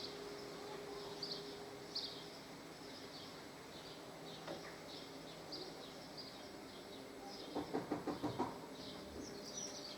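Faint small birds chirping in the background, short chirps repeating throughout. About eight seconds in comes a brief cluster of clicks and rasps.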